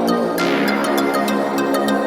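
Background electronic music with a steady beat of high ticks and sustained synth tones, with a cymbal swell about half a second in.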